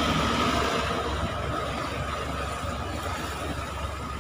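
Car A/C blower fan running, its freshly replaced motor pushing air through the dash vents with a steady whine over the idling engine's low hum. The sound eases gradually quieter. The fan is working again after the old blower motor burnt out.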